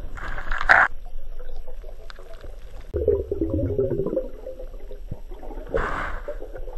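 Muffled underwater noise picked up by a camera in a waterproof housing: a short hissing burst of bubbles at the start and another about six seconds in, with a low rumble about three seconds in and faint clicks between.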